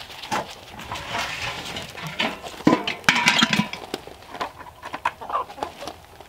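Chickens clucking, mixed with clanks of a galvanized metal chicken waterer being pulled apart and set down, and footsteps on gravel. The loudest clank comes about three seconds in and rings briefly.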